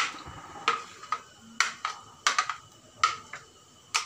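A plastic blender jar, held upside down, knocked about ten times at irregular spacing against a glass bowl, each knock ringing briefly, as thick lentil batter is shaken out.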